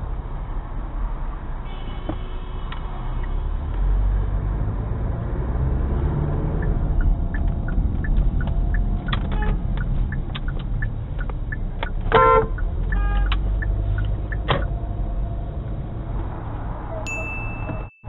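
Car cabin sound picked up by a dashcam while driving in traffic: a steady low road and engine rumble. A few short pitched tones stand out, the loudest a brief car horn beep about twelve seconds in.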